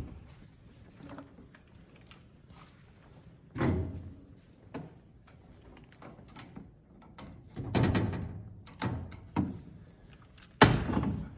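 Intermittent heavy clunks and thuds of metal telescopic-bleacher hardware and decks being worked by hand: a few separate knocks with quieter taps between, the sharpest and loudest near the end.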